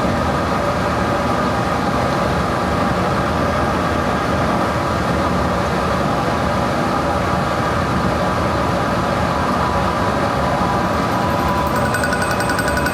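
Metal lathe running steadily while its tool takes a turning cut along the outside diameter of a cast model steam-locomotive driver center. About a second before the end, a higher, finer sound joins the steady machine noise.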